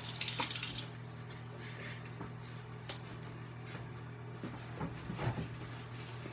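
Water running from a tap, shut off about a second in, followed by faint clicks and handling sounds over a steady low hum.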